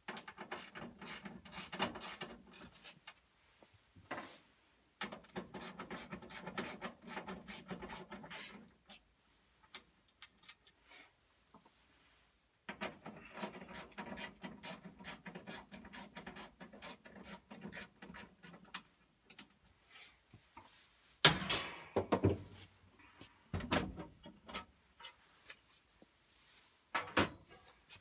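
Fasteners being worked loose on the sealed sheet-metal access panel of a Trane furnace's burner compartment: three runs of fast ticking and rubbing a few seconds each, then two loud metal knocks as the panel is taken off.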